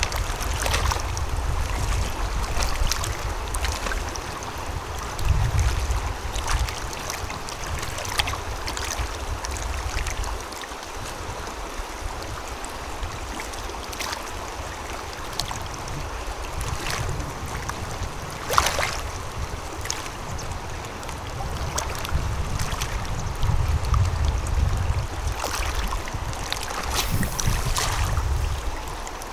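Flowing river water with wind gusting on the microphone, plus scattered small knocks and clicks.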